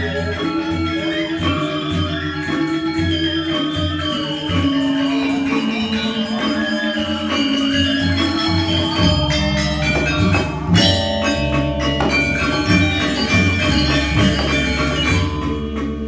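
Balinese gamelan ensemble playing live: ringing metallophone tones in a steady melody, with drum strokes. About nine seconds in, a deep held low tone comes in and the striking gets busier.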